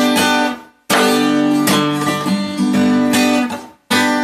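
Cutaway acoustic guitar strummed in ringing chords, the sound stopping dead twice, once less than a second in and again near the end, with fresh strums right after each stop.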